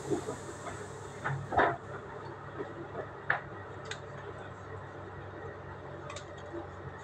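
Low steady hum of a standing train, with a few light clicks and knocks scattered through it.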